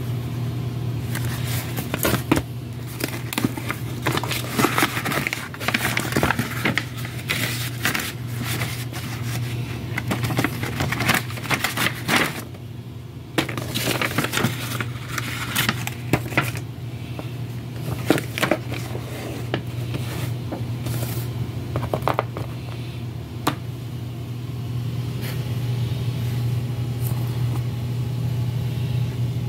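Paper rustling and crinkling as an envelope and gift wrap are handled and opened, in irregular scrapes and crackles over a steady low hum.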